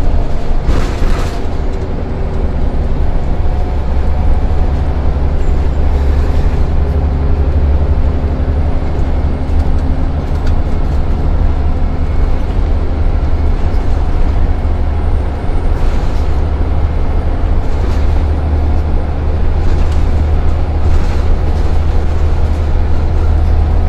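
Interior of a Scania Wright Solar single-deck bus running at speed: the diesel engine drones steadily under heavy road and tyre rumble. Scattered short rattles and knocks come from the body shaking on a rough road.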